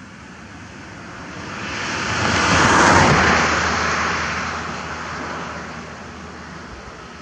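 A vehicle passing by on the road: its noise swells to a peak about three seconds in, then fades away.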